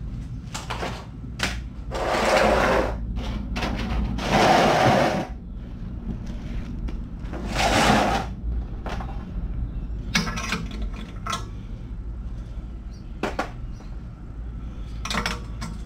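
Hand tools working on a truck's exhaust hardware: scattered metal clicks and knocks, with three loud rushing bursts of about a second each in the first half, over a steady low hum.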